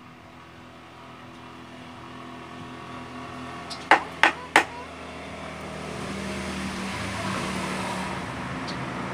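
A motor vehicle's engine running in the background, getting steadily louder. Three sharp clicks come in quick succession about four seconds in as the piston and its rings are handled.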